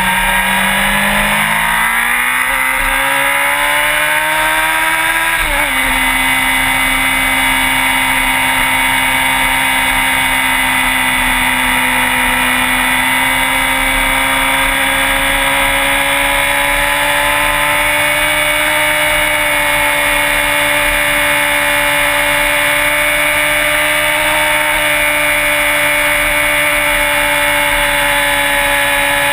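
Sport bike engine running under way: the revs climb for the first few seconds, drop sharply about five and a half seconds in as it shifts up, then hold steady at cruising speed.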